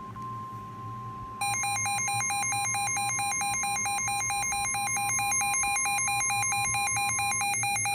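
NOAA Weather Radio 1050 Hz warning alarm tone, a steady single tone, joined about a second and a half in by the weather radio receiver's own loud, rapidly pulsing alert beep. The steady tone stops near the end while the beeping goes on. Together they signal that a new warning, here a severe thunderstorm warning, is about to be read.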